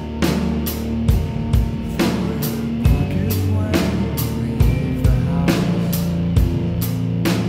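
Music: a drum kit keeps a steady beat of about two hits a second over a sustained bass line.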